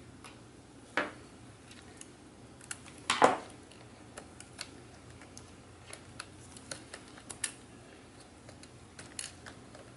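Small handling clicks and taps from disassembling a MacBook Pro: a screwdriver set down on a wooden table and fingers working the logic board loose in its aluminium case. Two louder knocks come about one and three seconds in, followed by a scatter of lighter ticks.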